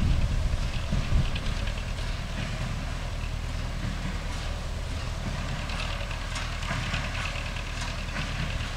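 MTZ-5LS tractor's diesel engine running steadily, with faint ticking in the second half.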